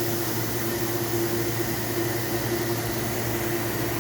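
Air cooler's electric fan running steadily, a constant hum with one held mid-pitched tone over a wash of moving-air noise.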